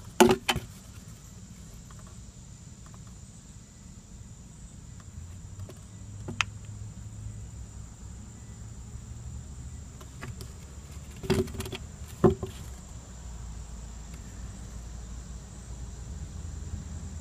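Steady high-pitched hum of insects, with sharp knocks from handling the plastic intake manifold near the start, once about six seconds in and twice around eleven to twelve seconds in. A low rumble sets in about five seconds in.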